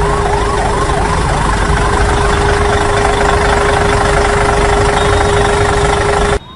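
Heavy vehicle engine running loudly with a steady hum, while a siren yelps quickly up and down over it; near the end the engine noise cuts off abruptly and only the siren carries on, much quieter.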